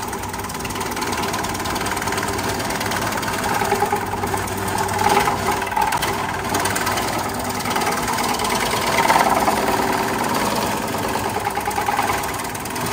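Electric herb-slicing machine running, its spinning blade disc chopping a woody stem into thin slices as it is fed down the chute. A steady, rapid clattering whir that swells briefly a few times.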